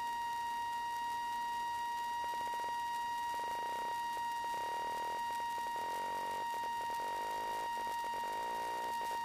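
Steady high-pitched electrical whine on a light aircraft's headset intercom audio, with faint buzzing that comes and goes from about two seconds in.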